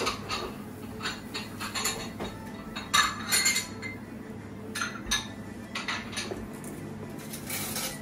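A plate and paper napkin clattering and rustling in short, irregular bursts as a cannoli is picked up off the plate and handled, loudest about three seconds in, over a steady low hum.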